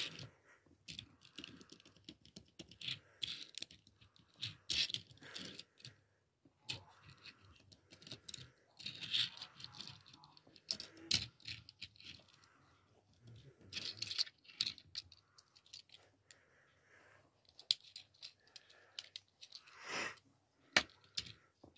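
Small clicks, rattles and scrapes of a Tomica die-cast toy car, coming and going irregularly as it is pressed down on its spring suspension and rolled across a tabletop, with a few sharper clicks.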